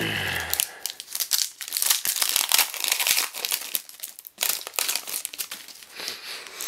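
Plastic trading-card pack wrapper being torn open and crinkled by hand, a dense run of crackling with a short pause partway through before more crinkling as the cards are pulled out.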